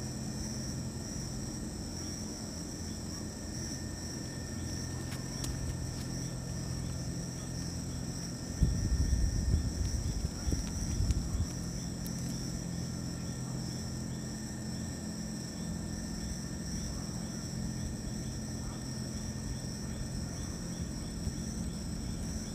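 Night-time insect chorus, a steady high-pitched trill. Partway through, a louder low rumble comes and goes for about three seconds.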